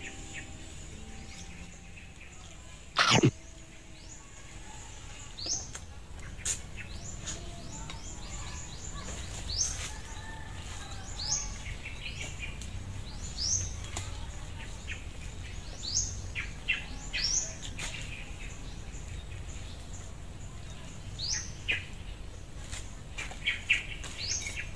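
Birds calling, short rising chirps repeated every second or two over a steady low rumble. One sharp knock about three seconds in is the loudest sound.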